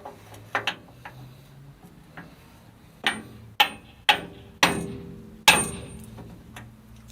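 Hammer blows on steel during brake S-cam bushing replacement on a KAMAZ truck. A few lighter knocks near the start are followed, about three seconds in, by five hard ringing strikes about half a second apart.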